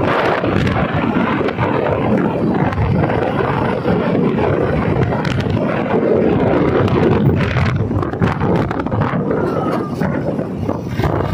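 Royal Enfield Classic 350 single-cylinder motorcycle riding along at road speed: steady engine and road noise under heavy wind buffeting on the microphone.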